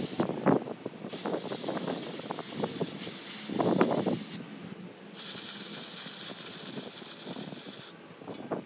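Compressed-air blow gun hissing in long blasts, blowing out and drying cleaned carburetor parts. One blast cuts off just after the start, a second runs for about three seconds, and a third for nearly three more, with a rough clatter between them, loudest about four seconds in.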